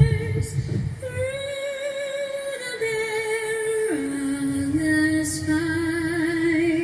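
A woman singing long held notes with a wavering vibrato. The melody rises a step about a second in, then falls back in steps to a low note around four seconds in and climbs slightly again.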